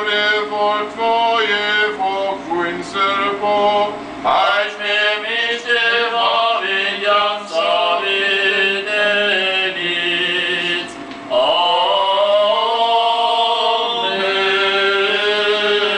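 Male voices chanting an Armenian Apostolic church hymn, with long held, ornamented notes. A new phrase begins about four seconds in and again about eleven seconds in.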